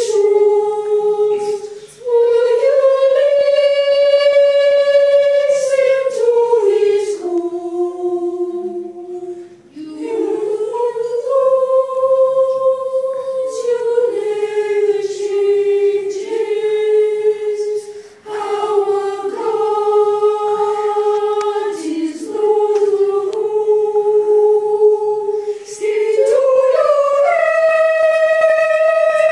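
Unaccompanied treble singing: a slow melody in long held notes, phrased with short breaths about every eight seconds.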